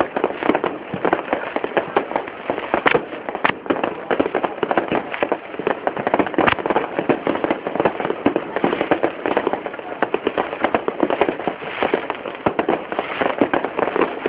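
Fireworks going off in a dense, continuous barrage: many bangs and crackles a second from aerial bursts and firecrackers, with a few louder bangs about three seconds in and again around six seconds.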